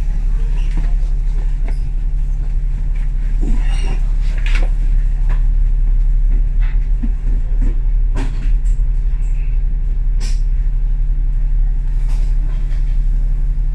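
Inside a KMB Alexander Dennis Enviro500 MMC double-decker bus on the move: a steady low engine and road drone, with scattered rattles and clicks from the bodywork and fittings.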